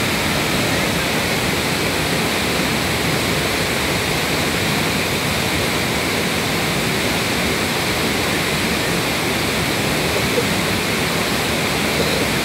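Steady rush of a stream's white water tumbling over rocks, an even, unbroken sound.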